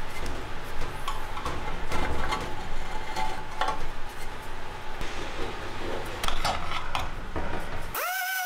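Hand scraper scraping old gasket sealant off the flange of a BMW X3 engine's aluminium oil pan: uneven metal-on-metal scraping strokes with small clinks. Music comes in at the very end.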